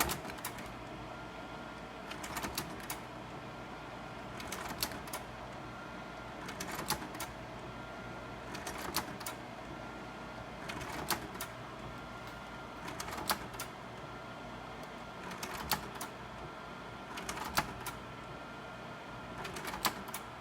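Sawyer 550R slide projector changing slides from a flat tray: a cluster of mechanical clacks about every two seconds as the changer pushes one slide out and the next one in, over the steady running of the projector's cooling fan.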